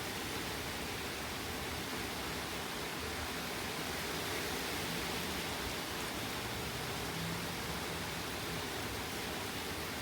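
Steady rain falling in a thunderstorm, an even, constant hiss.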